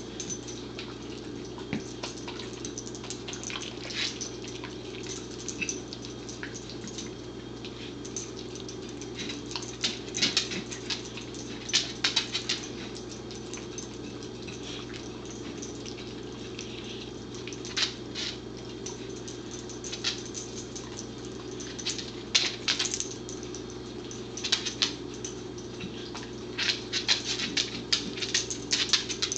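A corgi licking a plate clean of wet food: irregular wet licking and smacking sounds in short clusters, with the plate now and then knocking and scraping on the hard floor. A steady low hum runs underneath.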